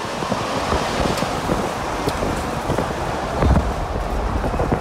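Wind buffeting the microphone, with the rumble of a vehicle underneath.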